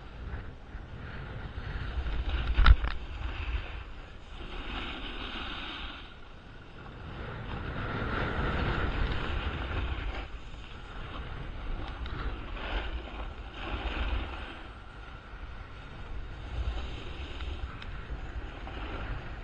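Wind buffeting a body-worn camera's microphone during a fast run down a groomed ski slope, with the hiss of edges scraping over packed snow swelling and fading through the turns. A sharp knock about three seconds in is the loudest sound.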